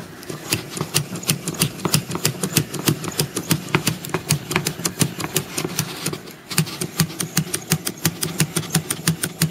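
Hand-cranked wooden dog automaton, whose works are a flap moved by a magnet, clicking rapidly and evenly, about five clicks a second, as the crank is turned; the clicking stops briefly about six seconds in, then resumes.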